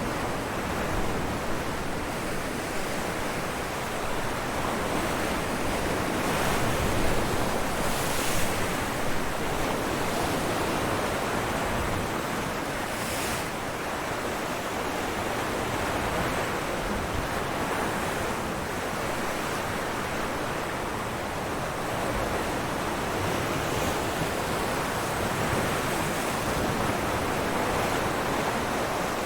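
Ocean surf breaking on rocks, a continuous wash of noise that swells and recedes, with brief brighter splashes of spray about eight and thirteen seconds in; some wind on the microphone.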